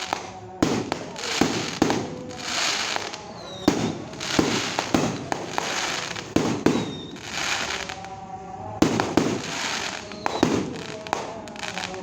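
Fireworks going off in quick succession: sharp bangs about once or twice a second, each trailed by crackling, with a few short whistles in between.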